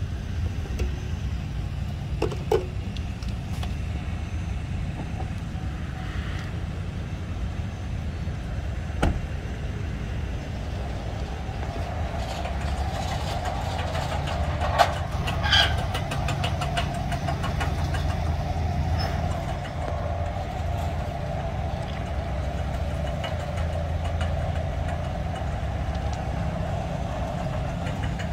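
Truck engine idling steadily, with a few sharp clicks and knocks along the way.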